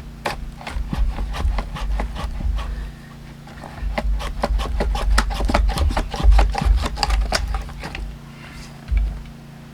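Larch or Douglas fir round crackling and popping as it is forced apart: a quick, irregular run of sharp cracks, densest in the second half, over a few dull low thumps.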